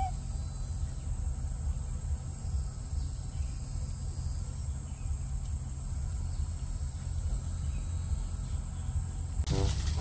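Insects chirping steadily as one high, thin drone over a low rumble. Near the end a louder pitched voice or call cuts in.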